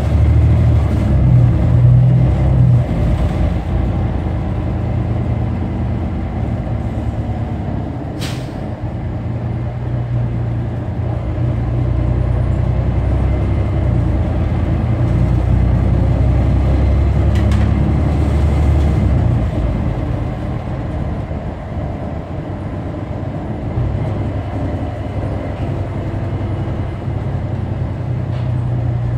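Diesel engine of a New Flyer XD40 Xcelsior city bus running under way, its low note shifting in pitch and loudness as the bus speeds up and slows. A sharp click comes about eight seconds in.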